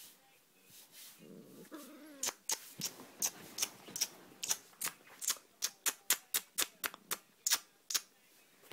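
A person making quick, repeated kissing smacks at a cat: about twenty sharp clicks, roughly three a second at irregular spacing.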